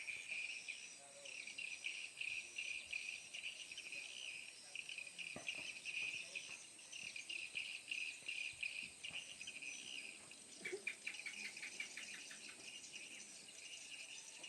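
Swiftlets chirping: a dense, rapid high twittering, with a quick run of evenly spaced clicking pulses about ten seconds in.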